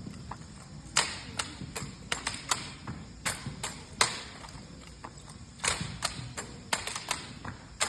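Sharp slaps and knocks of a rifle drill routine: hands striking and catching drill rifles, about two or three hits a second, with a short pause about halfway through.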